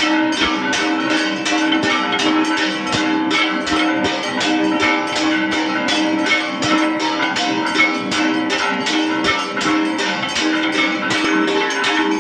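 Brass hand bell rung rapidly and without pause during a Hindu aarti, about five strokes a second, over a dense ringing clatter of other temple bells and percussion.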